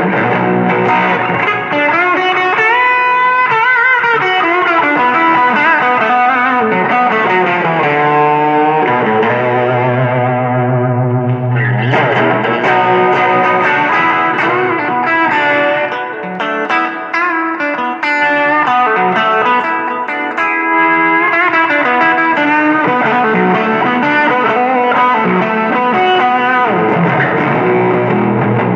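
Stratocaster-style electric guitar with '69-style single-coil pickups played through a Dunlop Fuzz Face Mini fuzz and a Boss SD-1 overdrive into a Fender Champion 20 practice amp on its Twin voicing with spring reverb: a fuzzy, distorted lead with string bends, a note held ringing out about ten seconds in, then more riffing.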